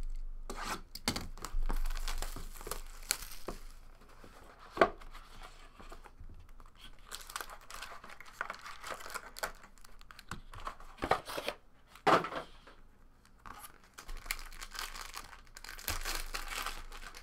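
Clear plastic shrink-wrap being torn and crumpled off a sealed trading-card box: a crackling, crinkling rustle broken by a few sharp snaps of the plastic.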